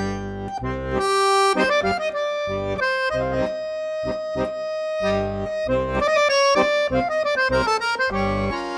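Instrumental music led by an accordion playing a melody over held bass chords.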